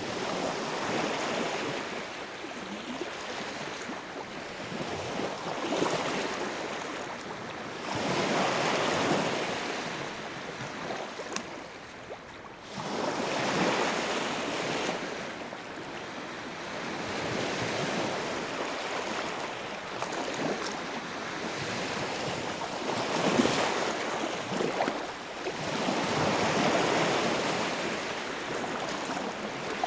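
Sea waves breaking and washing in, a steady hiss of surf that swells and fades about every four to five seconds.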